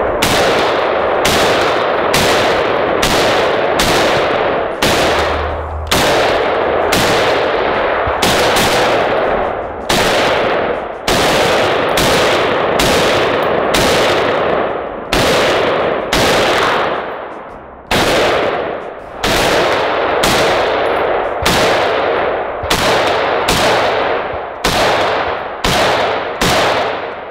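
IWI Tavor 7 bullpup rifle in 7.62x51mm NATO firing shot after shot, roughly one to two a second, each report trailing off in echo.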